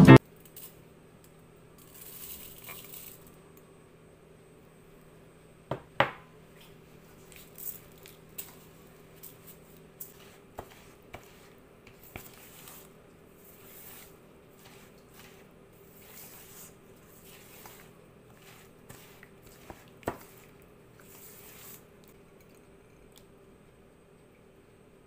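Silicone spatula working butter and brown sugar in a stainless steel bowl: soft scraping and squishing, with scattered knocks and clicks, the loudest about six seconds in. A faint steady hum lies underneath.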